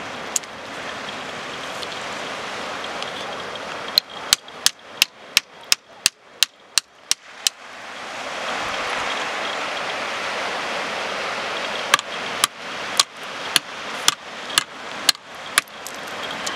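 Hammer striking shale on a rocky shore: a quick run of about a dozen sharp taps, then after a pause a slower run of about ten taps, each ringing briefly. Beneath them is a steady rush of surf.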